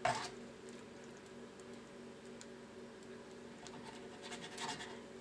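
A spatula scraping and pushing chicken pieces around a frying pan, with a sharper scrape at the start and a short run of scrapes about four and a half seconds in, over a steady low hum.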